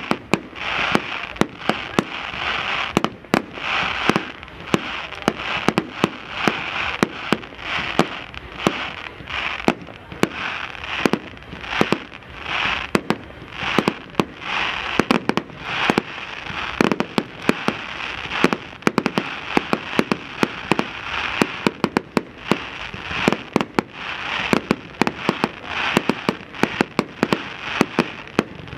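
Firework display: aerial shells bursting in a rapid, uneven run of sharp bangs, several a second, over a continuous crackling hiss.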